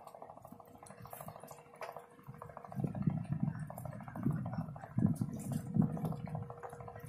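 A fast, even rattle of fine ticks over a steady hum. Uneven low rumbles join in about three seconds in.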